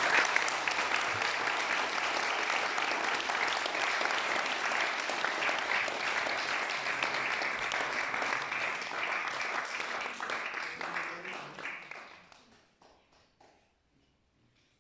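Audience applauding steadily, then dying away about twelve seconds in, with a few last scattered claps.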